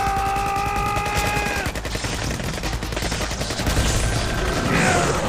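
Automatic rifle fire in a long, rapid, continuous burst. A man's held yell rides over it for about the first two seconds, and a shorter rising cry comes near the end.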